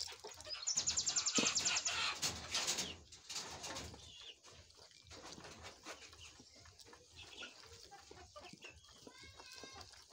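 Domestic chickens calling close by: a loud, rapid run of calls starting about a second in and lasting a couple of seconds, and a shorter call near the end. Under the calls, a wooden spoon scrapes softly as it stirs cake batter in a plastic bowl.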